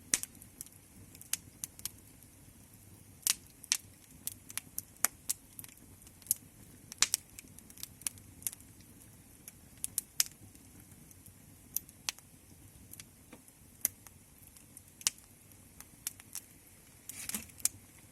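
Wood fire crackling: irregular sharp pops and snaps, a few a second, over a soft steady hiss, with a brief hissing flurry of crackles near the end.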